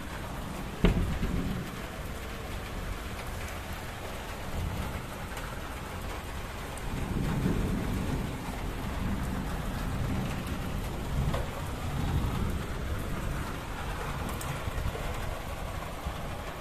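Heavy monsoon rain pouring steadily and splashing on paving and grass. A sharp crack about a second in is the loudest sound, and low rumbles swell up and fade twice later on.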